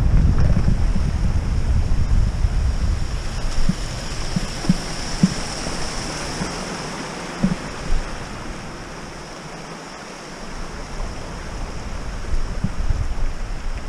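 Wind buffeting the microphone and tyres rolling over a dirt trail as a Trek Roscoe 6 hardtail mountain bike is ridden, with several sharp knocks from the bike over bumps in the middle. The rumble drops away for a few seconds past the middle, then builds again.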